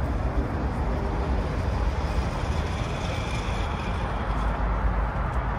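Steady outdoor background noise with a strong low rumble and no distinct events.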